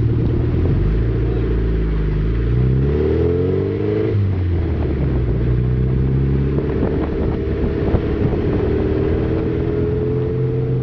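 Car engine pulling hard under acceleration, its pitch rising, dropping at a gear change about four seconds in, then climbing again more slowly, with tyre and road noise heard close by.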